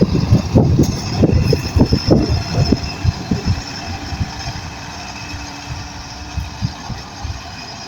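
Heavy diesel engine of a Shantui bulldozer running, with irregular low knocks that are loudest over the first three seconds and then settle into a steadier, quieter run.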